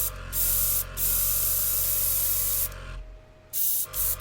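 Gaahleri Ambition Series airbrush spraying liquid onto a paper towel, a hiss switched on and off in short bursts with one longer pull in the middle. A steady hum from the running compressor lies underneath.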